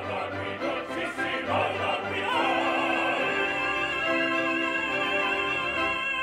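Operatic tenor voice singing over an orchestra. From about two seconds in he holds one long note with vibrato while the orchestra's chords change beneath it.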